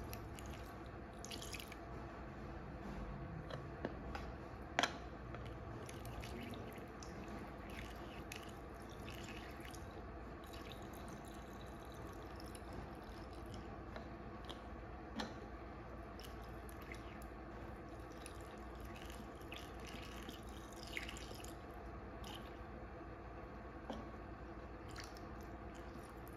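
Liquid trickling and dripping through a plastic funnel into a lead-acid car battery cell, over a faint steady hum. A few light clicks stand out, the loudest about five seconds in.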